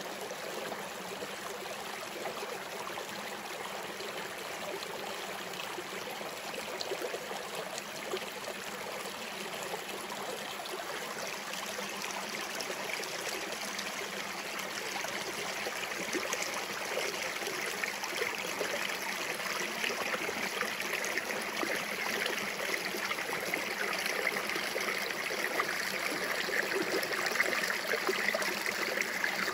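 Small rocky woodland brook rushing and gurgling over mossy stones, running full after a long spell of rain. The rushing grows steadily louder as it is approached, loudest near the end from directly above the water.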